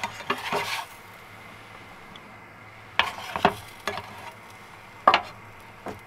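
Spatula scraping and tapping on a frying pan as a cheese pizza is moved around in it, in three short bouts: at the start, about three seconds in, and about five seconds in.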